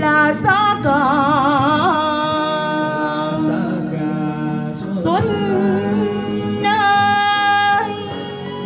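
A woman sings a slow Vietnamese ballad into a handheld microphone over backing music, holding long notes with a wide vibrato. Her last held note breaks off near the end, and the accompaniment carries on.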